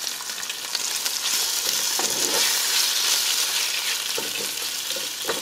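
Pieces of bacon frying in a little canola oil in a pot, a steady sizzle that swells in the middle, with a few brief scrapes of a utensil stirring them.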